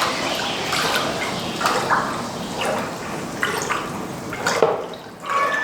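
Water boiling and bubbling against hot steel: the anvil's steeled face being quenched in water to harden it, with a steady hiss dotted with short pops and gurgles that dips briefly near the end.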